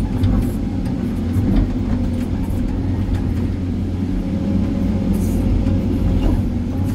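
Hydraulic excavator's diesel engine and hydraulics running steadily under load, heard from inside the cab, with a few faint knocks as the bucket digs into stony ground.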